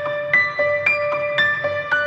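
Background music: a piano-like melody of single struck notes, a new note roughly every third of a second over a held lower tone.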